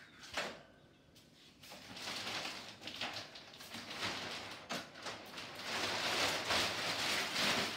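Plastic sheeting covering a mushroom fruiting chamber rustling and crinkling as it is pulled open and lifted off the shelves, growing louder from about two seconds in. A brief sharp noise about half a second in.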